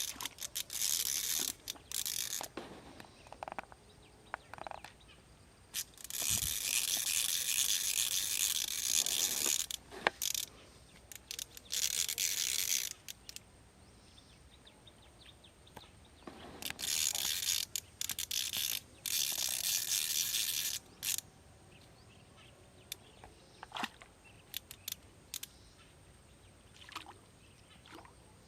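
Spinning fishing reel being cranked in several spells of one to three seconds, a fast clicking whir, with short pauses and scattered clicks between spells.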